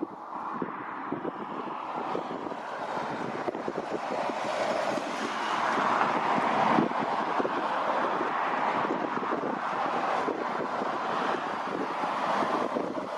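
Boeing 777F's twin GE90 turbofan engines running at taxi power, a steady jet rush that swells about five seconds in and then holds.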